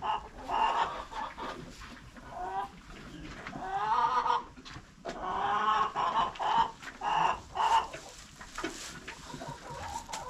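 Chickens clucking and calling, a string of short pitched calls with gaps between them, with a few faint knocks.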